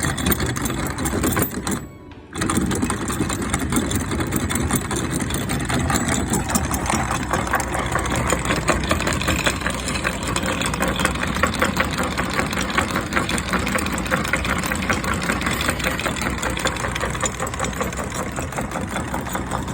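A boat's engine running steadily with a rapid, even chugging; the sound cuts out briefly about two seconds in, then carries on unchanged.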